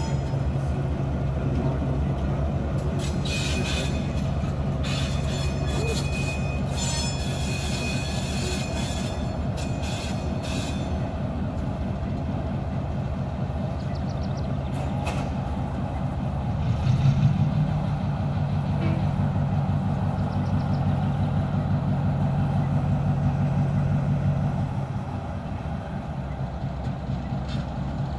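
Diesel locomotives, an EMD RS1325 switcher with an F-unit, running slowly through a yard: a steady diesel engine drone, with high-pitched wheel squeal in the first ten seconds or so. The engine sound swells about 17 seconds in and drops back again near 25 seconds.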